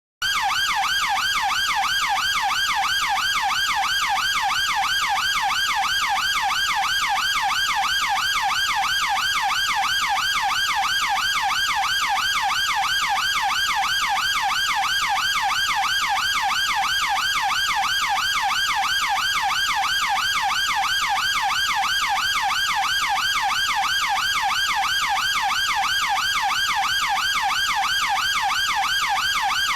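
UK police car electronic siren in fast yelp mode: a rapid up-and-down wail repeating evenly several times a second, starting suddenly out of silence.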